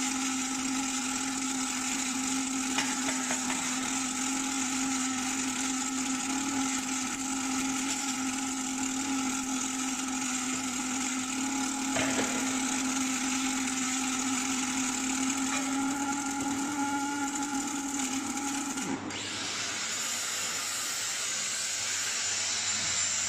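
Automatic circumferential seam welder welding around a rotating air-pressure tank: a steady hum with the hiss of the welding arc. About 19 seconds in the hum and arc stop as the weld ends, leaving a thinner steady high whine.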